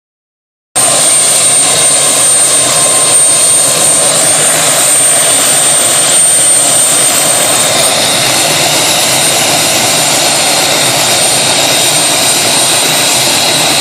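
Helicopter running at a steady pitch, heard from inside the cabin: a loud even noise with a high steady whine over it, starting abruptly just under a second in.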